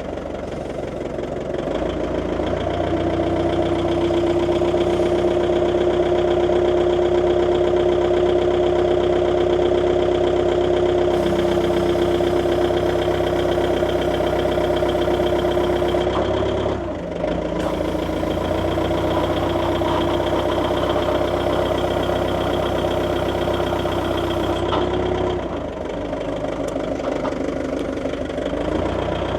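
Forklift engine idling steadily, with a strong steady whine over it that breaks off briefly about halfway through and drops away again near the end.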